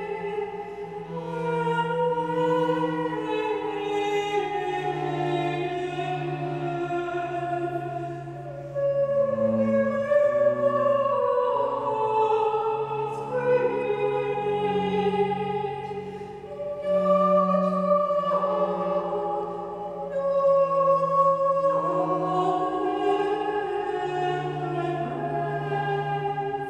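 A woman singing in operatic style, long held notes with vibrato, over sustained low notes bowed on a large string instrument.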